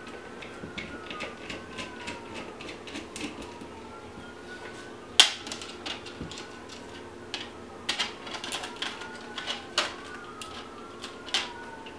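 Light metal-and-plastic ticks of a precision hex screwdriver working screws out of a polymer pistol grip. From about five seconds in come sharper separate clicks as bits and a screwdriver are handled in a plastic bit case. A siren wails faintly in the background, its pitch slowly rising and falling.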